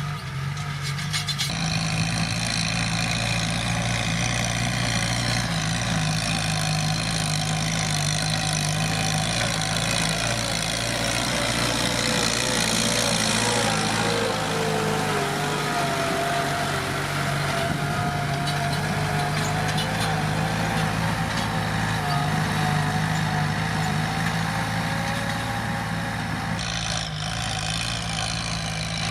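Kubota M7040 tractor's diesel engine running steadily, with a rush of added noise coming in about a second in and easing back near the end. A whine slides down in pitch midway and then holds.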